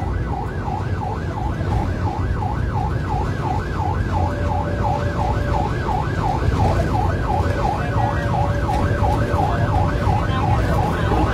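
Emergency-vehicle siren in a fast yelp, its pitch swooping up and down about three times a second, heard from inside the rescue van's cab over the steady rumble of the engine and road as it drives at speed to an accident call.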